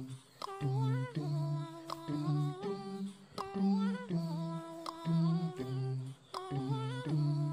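Background vocals-only nasheed with no instruments: a hummed 'dum dum' melody over a steady beat of clicks.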